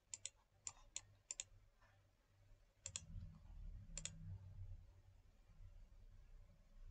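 Computer mouse clicking: about ten short sharp clicks, several in quick pairs, over the first four seconds, then near silence.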